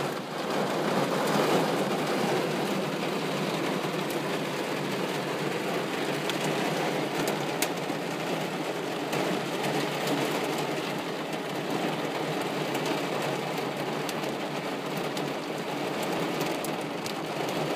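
Heavy storm rain pouring down and beating on window glass: a steady rushing noise with scattered sharp ticks of individual drops.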